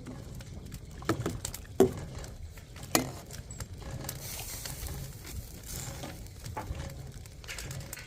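Kitchen utensils knocking and clinking against a cooking pot, three sharp knocks in the first three seconds, over a steady low rumble.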